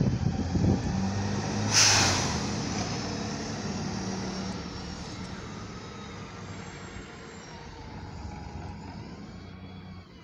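Single-deck midibus pulling away, its engine running with a low hum, with a sharp hiss of air from the brakes about two seconds in. The engine sound then fades steadily as the bus drives off.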